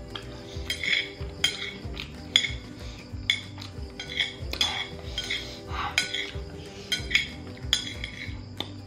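Metal chopsticks clicking and scraping against a ceramic plate as noodles are picked up and eaten, in short strokes about once a second, over soft background music.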